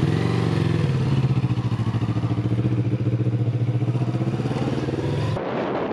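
Kawasaki Ninja 650 parallel-twin motorcycle engine running as the rider pulls away, its pitch rising slightly at first and then holding steady. The sound breaks off abruptly near the end.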